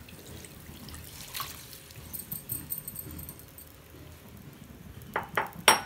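Pressure-cooked duck pieces and their broth poured from a glass bowl into a clay pot, a soft splashing and trickling of liquid and meat. Near the end come three sharp knocks, the last the loudest.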